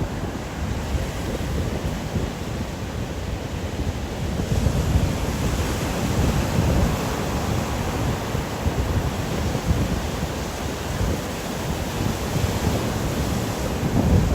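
Ocean waves washing on the shore, the hiss swelling about four seconds in and again near the end as the surf surges, with wind buffeting the microphone in a steady low rumble.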